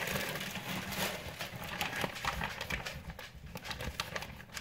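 Plastic food bags crinkling and rustling as they are handled, with irregular crackles throughout.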